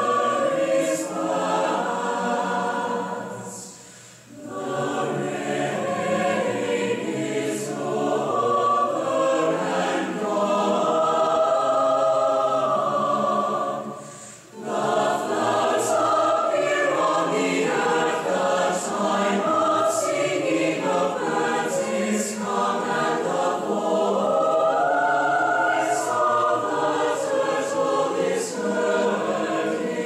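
Choir singing, with two brief breaks between phrases: about four seconds in and again near the middle.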